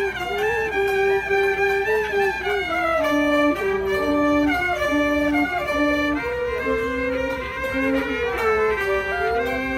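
Ebony gaohu with a snakeskin head, a high-pitched Cantonese two-string fiddle, bowing a slow traditional Cantonese melody in sustained notes, sliding up and down between pitches.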